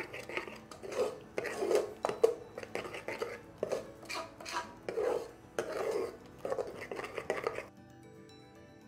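A steel spoon stirring and scraping a thick, wet chana dal, coconut and jaggery filling against the sides of an aluminium pressure cooker, at about two strokes a second. The strokes stop abruptly near the end.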